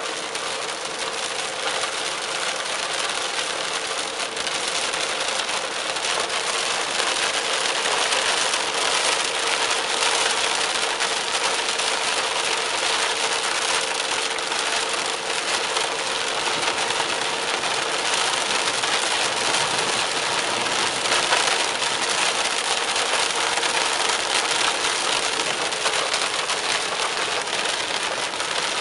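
Heavy rain hitting a moving car's windshield and body, mixed with tyre hiss on the wet road, heard from inside the cabin; a faint steady hum runs underneath. The rain grows a little heavier after the first few seconds.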